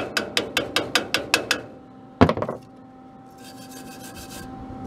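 A chipping hammer taps quickly on a fresh stick-weld bead on a steel bumper bracket, about five light strikes a second, knocking the slag off. A single harder knock follows about two seconds in, then a steel wire brush scrubs the bead near the end.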